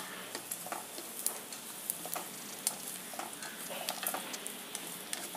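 Wooden spatula stirring diced carrot into softened, sautéing onions in a stainless steel pot: a steady light sizzle with scattered scrapes and taps of the spatula against the pan.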